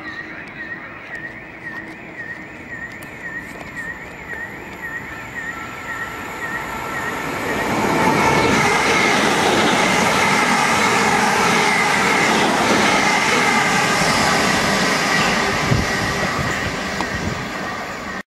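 Electric multiple-unit passenger train running through the station close by: a loud, steady rush of wheels on rail with several steady whining tones, swelling in from about seven seconds in and cutting off abruptly at the end. Before it, a high tone warbles up and down about twice a second.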